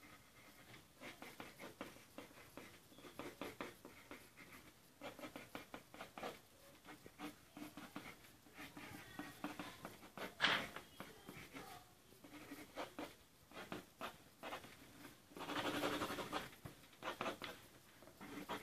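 Pencil sketching on paper: faint short strokes of the lead on the sheet, with a denser run of quick strokes a few seconds before the end.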